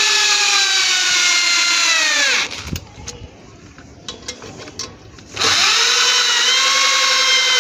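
Corded electric drill, hammer action switched off, spinning a 10 mm socket to run a nut down onto the bolt of a steel dish-mount bracket. The motor whines and winds down about two and a half seconds in. A few clicks and knocks follow, then a second run starts about five and a half seconds in and slows again near the end.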